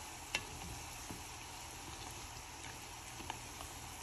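Cassava balls deep-frying in hot oil with a steady sizzle, and a few sharp clicks of tongs against the pot, the loudest about a third of a second in.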